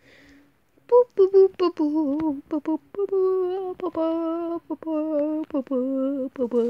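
A person humming a wordless tune, starting about a second in: a quick run of short notes, then longer held notes that waver slightly.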